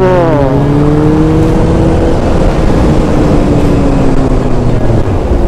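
Honda CB600 Hornet inline-four engine running while the bike is ridden on the road, its pitch climbing gently for about two seconds and then easing back down, with wind noise on the camera underneath.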